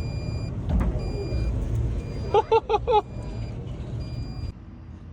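Excavator's diesel engine running with a low rumble while a high-pitched alarm beeps about once a second. There is a single knock about a second in, and the engine drops off sharply near the end.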